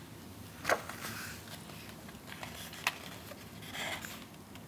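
Pages of a softcover photobook being turned by hand: soft paper rustles with a few light snaps of the page, one about three quarters of a second in and a sharper tick near three seconds.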